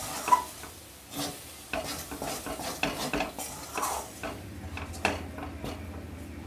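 Metal spatula stirring and scraping a thick spice paste around an aluminium kadai, in irregular strokes with light clinks against the pan, over a faint sizzle. Ground herbs and spices are being mixed into ginger paste frying in ghee.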